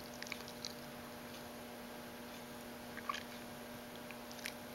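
Lipstick being put on: a few faint, small clicking and smacking sounds, just after the start, about three seconds in and near the end, over a steady low hum.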